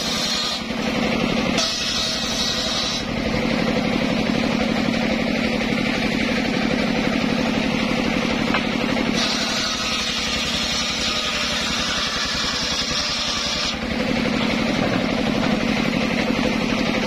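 Engine-driven circular sawmill running steadily. Its spinning blade cuts through a mahogany log, adding a hissing, higher sawing sound briefly near the start and for several seconds in the middle.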